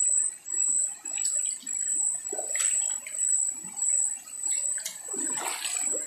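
Feet splashing and sloshing through a shallow, rocky stream in irregular steps, the loudest splashes about two and a half and five and a half seconds in. A steady, high insect drone of cicadas and crickets runs underneath.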